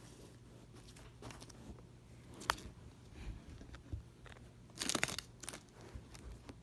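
Foil wrapper of a Pokémon card booster pack crinkling as it is handled and worked at to open it, with scattered sharp crackles, the loudest cluster about five seconds in.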